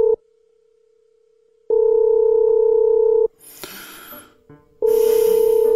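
Telephone ringback tone heard down the line: a steady low tone sounding in rings of about a second and a half with pauses of similar length, as the call goes unanswered. A brief hiss falls between the second and third rings.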